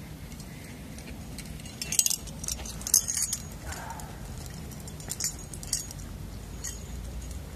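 Climbing carabiners and quickdraws clinking together on a harness as the climber walks, in two bursts of jangling about two and five seconds in.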